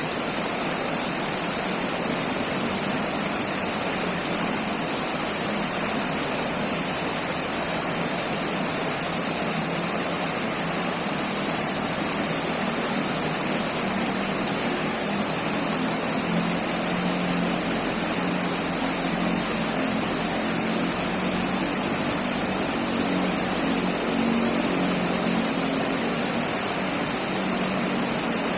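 River water flowing with a steady rushing sound, with a low rumble growing stronger from about halfway through.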